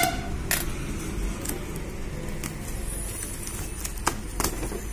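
Brown paper courier packaging being pulled open and handled, with scattered paper crackles and taps, over a steady low traffic rumble. A car horn's toot ends just at the start.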